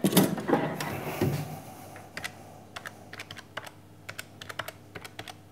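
Buttons of a desktop calculator being pressed: a run of light, uneven clicks, a few a second. It follows a louder clatter of handling in the first second or so.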